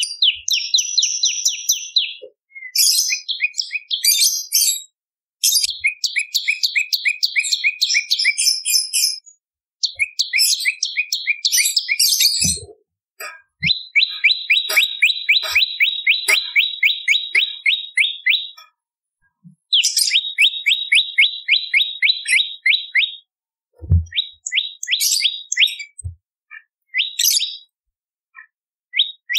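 Prenjak lumut, a small Indonesian warbler, calling in fast trills of sharp repeated chirps, about eight a second. The trills come in runs of a few seconds with short pauses between them.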